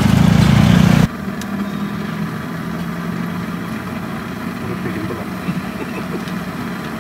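A motor engine idling steadily with a low, even hum. For the first second a louder low rumble lies over it, which cuts off suddenly about a second in.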